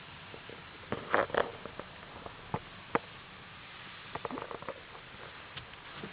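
Scattered short clicks and rustles from a handheld camera being moved about, over a steady hiss. The loudest cluster comes about a second in, and a quick run of small clicks follows past the middle.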